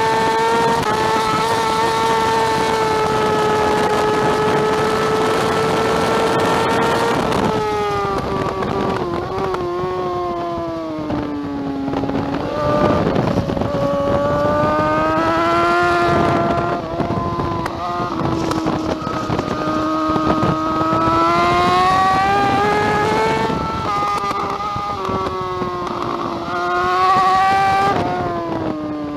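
2009 BMW S1000RR's inline-four engine at race pace: it holds a steady, slowly rising high note for about seven seconds, then steps down through several quick downshifts under braking and climbs and falls again as the rider accelerates out of and brakes into the following corners, with wind rushing past.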